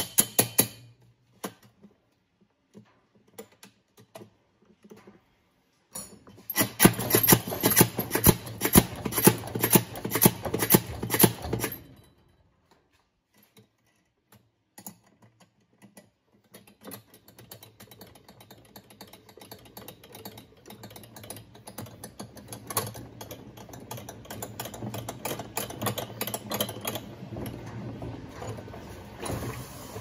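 Rapid metallic clicking and rattling of hand tools working on a washing machine's drive parts during disassembly. A dense, loud run of fast clicks comes about six seconds in and stops about halfway, then quieter scattered clicking builds up again toward the end.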